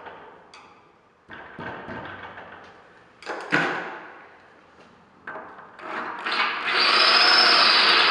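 A few handling knocks and clatters, the loudest about three and a half seconds in, then a power drill spins up about six seconds in and runs steadily, its bit boring into a stripped steel Allen-key fixing screw on a soft-close glass-door hinge plate.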